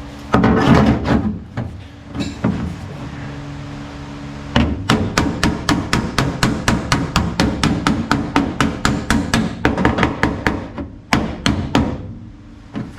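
Hammer blows on a car's sheet-metal floor pan, knocking out a dent. A few scattered blows come first, then a fast, even run of about five strikes a second lasting some six seconds, then a few more, over a steady low hum.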